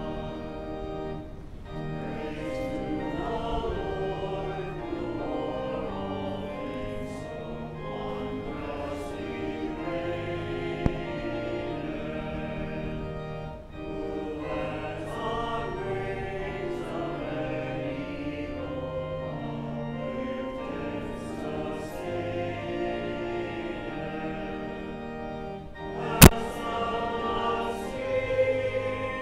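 Congregation singing a hymn in unison to organ accompaniment, phrase after phrase with short breaks between them. A single sharp click about 26 seconds in stands out above the singing.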